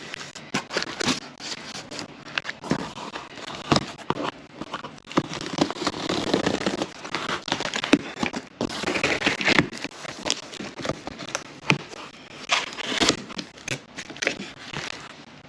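Cardboard packaging being opened and bubble-wrapped solar panels handled: plastic crinkling and crackling, with tearing, scraping and many sharp clicks.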